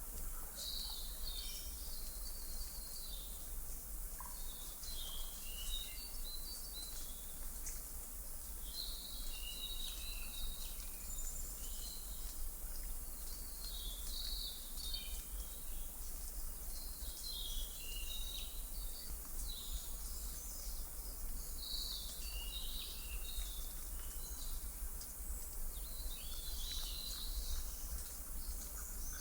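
Birds chirping in short clusters every few seconds over a steady high hiss and a low hum: a birdsong nature-ambience track used as study background noise.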